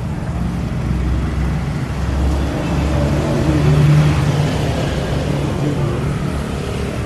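A motor vehicle engine running with a steady low hum that swells louder about three to four seconds in, then settles back.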